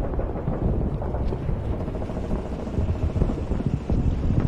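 Distant-battle ambience for a WWII scene: a continuous low rumble with a rough hiss over it and no single sound standing out.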